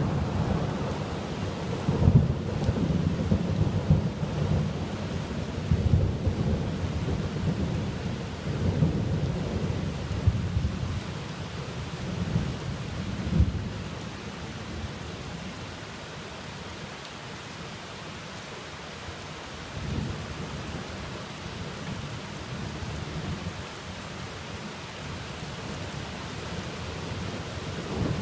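Thunder rolling over steady rain. Long low rumbles with louder peaks fill the first half, then die away to mostly rain, with a short rumble about twenty seconds in and the thunder swelling again at the end.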